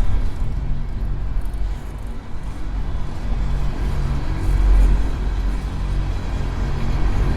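Empty coal train of hopper cars rolling past at slowing speed: a steady low rumble of wheels on rail with a faint tonal ring above it.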